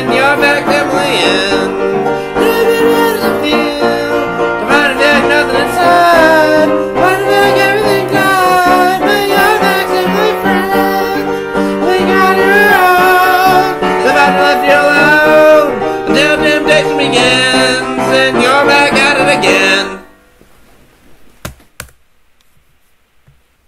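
The end of a rough song demo: sung vocal harmonies over instrumental backing, which stop suddenly about 20 seconds in. Then a quiet stretch with a couple of faint clicks.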